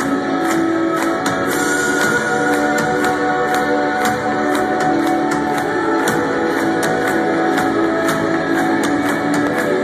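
Rock band playing live: electric guitars with sustained chords over a steady drumbeat.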